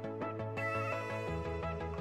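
Background music: a melody of quick, short notes over a steady bass line, with the bass shifting lower near the end.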